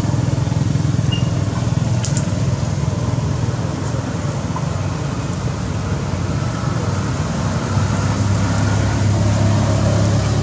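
Steady motor-vehicle noise from motorbikes and cars on the road, with a low engine hum growing louder near the end as one comes closer.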